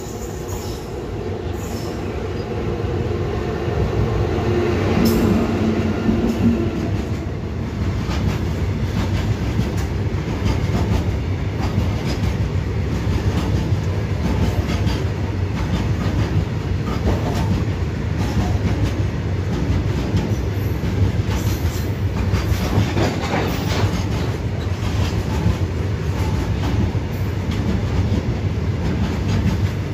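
Freight train of covered goods wagons rolling past close by. The sound builds over the first few seconds, with a brief droning tone about five seconds in, then settles into a steady rumble and clatter of wagon wheels over the rails.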